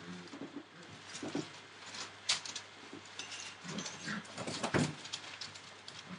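Entlebucher Mountain Dog puppies playing on a newspaper-covered floor: scattered rustling of paper and knocks of toys as they chew and tussle, with occasional small puppy noises. The sharpest knocks come about two and a half and nearly five seconds in.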